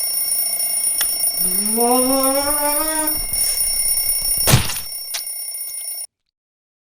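Alarm clock ringing with a steady high-pitched electronic tone. Partway through, a drawn-out rising pitched sound is heard, and a little later a single loud thump, the loudest moment. About six seconds in the sound cuts off abruptly to silence.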